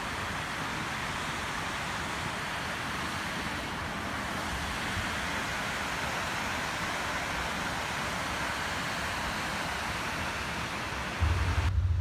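Waterfall rushing: the steady, even noise of water falling over a wide rock ledge. A little before the end it gives way abruptly to a louder low rumble.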